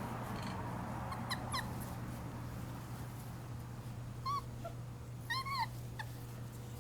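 Miniature schnauzer puppy whimpering: a few short, high squeaks that rise and fall in pitch, in pairs about a second and a half in and again around five and a half seconds, with a single one in between.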